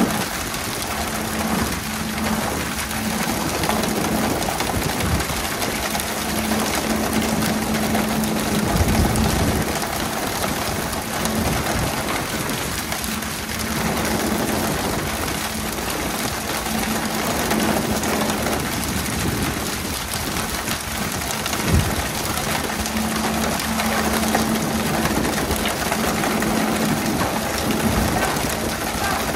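Steady hiss of a pole-and-line boat's water sprayers showering the sea surface at the stern, sounding like heavy rain, over the hum of the boat's engine. A few dull thumps break through now and then.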